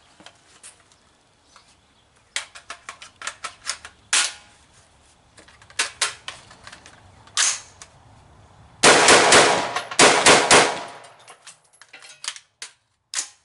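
Metallic clicks and clacks of a Colt 723 carbine being handled. About nine seconds in comes a rapid string of gunshots from it lasting about two seconds, then a few light clicks.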